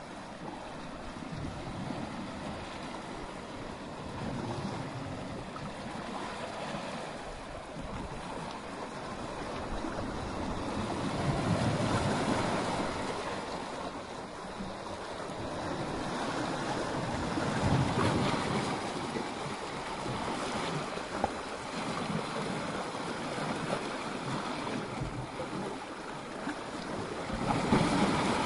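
Sea waves washing up a sandy beach and breaking over rocks. The surf swells and eases in slow surges, loudest about twelve and eighteen seconds in, with a heavier crash near the end.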